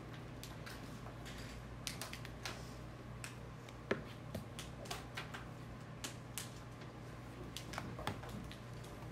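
Scattered, irregular small clicks and taps from students working at their desks, with one sharper knock about four seconds in, over a steady low hum of room equipment.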